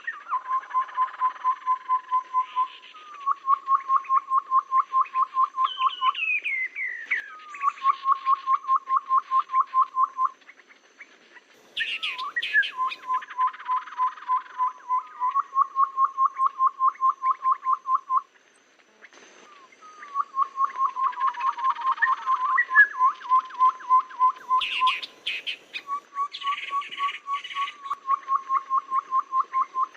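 Tepus babbler lure-call recording: runs of rapid, evenly spaced piping notes on one pitch, about six a second, each run lasting two to four seconds. Higher, sharper chirps and a few falling notes come in between the runs, with brief pauses twice.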